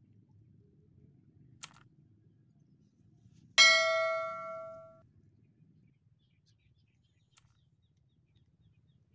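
Subscribe-button animation sound effect: a soft click, then one bright bell chime about three and a half seconds in that rings and fades over about a second and a half, and another soft click near the end.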